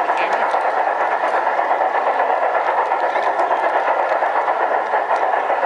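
LGB garden-scale model freight cars rolling past close by on the layout's track: a steady rolling noise with faint clicking from the wheels.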